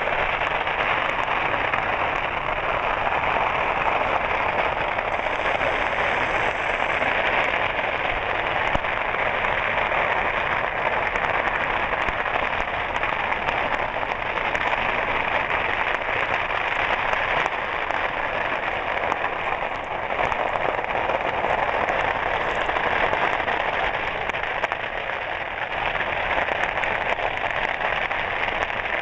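Fireworks stock burning in a stand fire, crackling and popping as a dense, steady rattle of many small firecracker pops with no break.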